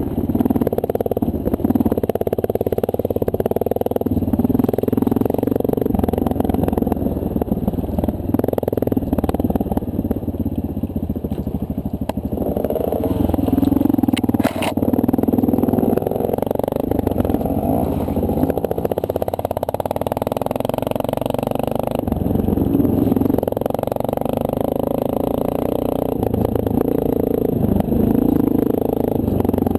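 2009 Honda CRF230L's single-cylinder four-stroke engine running under way, its pitch rising and falling with the throttle, with one sharp click about halfway through.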